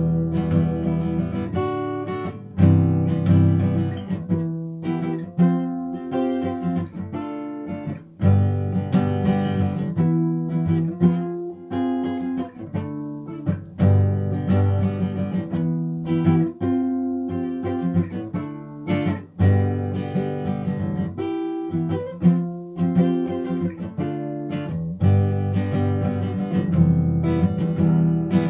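Guitar music: a run of plucked notes and chords, each starting sharply and ringing on.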